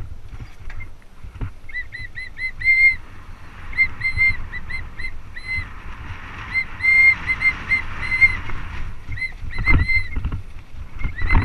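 Mountain bike brakes squealing in many short, repeated high-pitched chirps at one steady pitch as the rider brakes on and off on a descent, over the hiss and rumble of tyres on dirt. A couple of heavier thumps from the bike hitting rocks come near the end.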